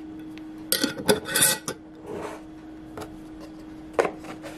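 Hands handling food and containers on a wooden tabletop: a few light clicks and taps and a short rustle, over a steady low hum.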